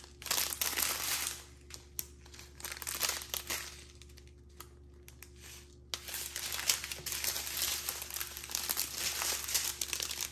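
Strips of clear plastic bags of diamond-painting drills crinkling as they are handled, in irregular bursts that grow busier and louder in the second half.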